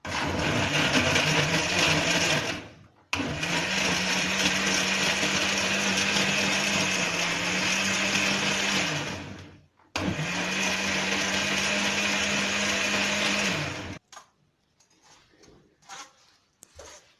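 Electric blender running in three bursts, about three, six and four seconds long, as it blends oranges and lemons with water into juice. A few faint clicks and knocks follow after the motor stops.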